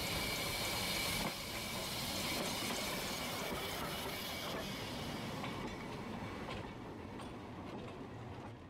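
Narrow-gauge train running, a steady rolling rail noise that dips a little after about a second, fades gradually and then cuts off abruptly at the end.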